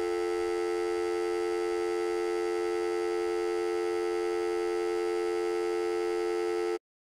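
Telephone dial tone: a steady, unbroken tone that cuts off suddenly near the end.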